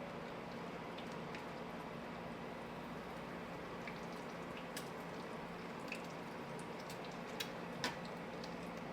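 Crab cakes frying in oil in a skillet: a steady soft sizzle with scattered sharp pops and crackles, a few louder ones in the second half.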